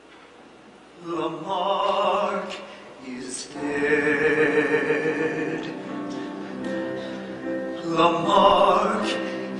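Stage-musical singing with orchestral accompaniment, starting about a second in after a brief hush.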